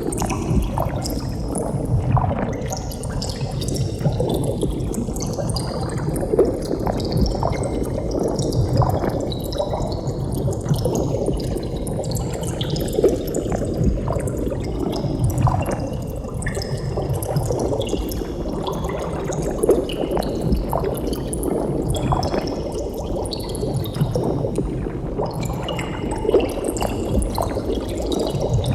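Bubbling water: a steady rush of rising bubbles with many small pops and gurgles, with a slow sweeping shift in tone.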